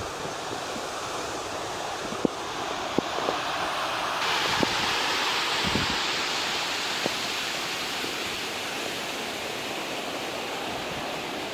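Whitewater mountain stream rushing over granite slabs, a steady roar that grows louder about four seconds in, with a few scattered sharp taps.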